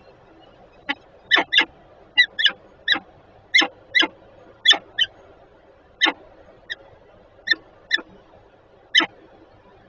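Peregrine falcon calling: a series of about fifteen short, sharp calls, several in quick pairs, starting about a second in.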